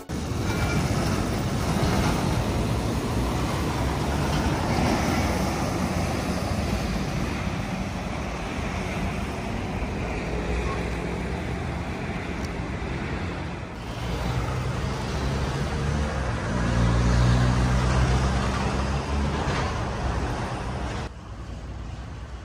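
Road traffic noise from passing vehicles, a steady rumbling hiss. About two-thirds of the way through a nearby engine rumble grows louder for several seconds. The sound changes abruptly twice.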